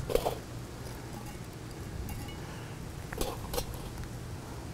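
Hot charcoal briquettes being set onto the lid of a Lodge cast iron Dutch oven: a few light clinks and knocks, one just after the start and a pair about three seconds in.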